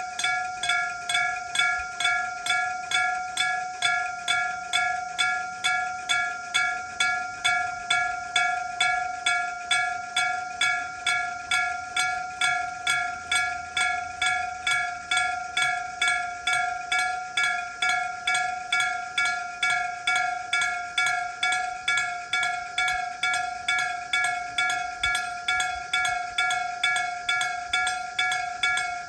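Japanese railway level-crossing warning bell ringing steadily, a repeating clang of about two strokes a second, each stroke dying away before the next.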